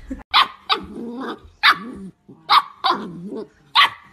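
A puppy barking repeatedly while playing with a toy: about six sharp yaps, each running into a short wavering growl.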